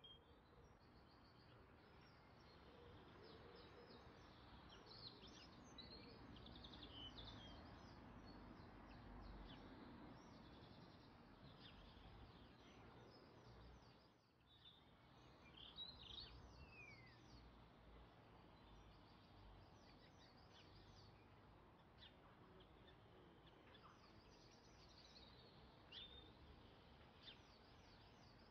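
Very faint, bird-like chirps and twitters over a low steady hiss, with a brief drop in level about halfway through.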